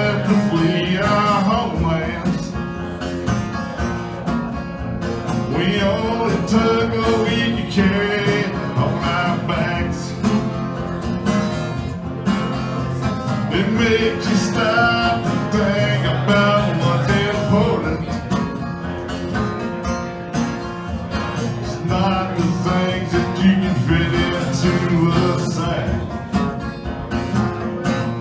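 A man singing a country-folk song to his own strummed acoustic guitar, performed live.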